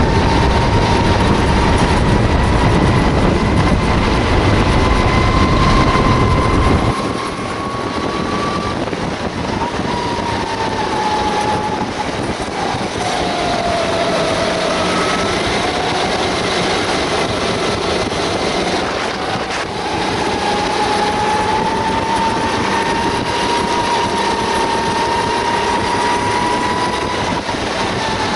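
Sodi rental kart's engine running flat out on track, its pitch rising and falling with speed through the corners. A heavy low rumble of wind buffeting the microphone fills the first seven seconds, then cuts off abruptly.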